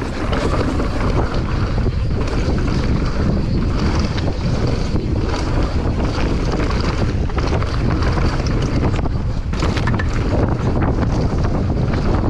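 Mountain bike descending a dirt trail at speed: wind buffets the microphone over a steady low rumble of knobby tyres on dirt, with many quick clatters and knocks as the bike rattles over bumps.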